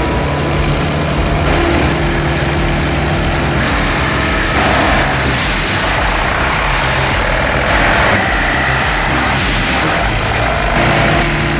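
Heavy machine engine running steadily, with rough mechanical noise above it that rises and falls every few seconds.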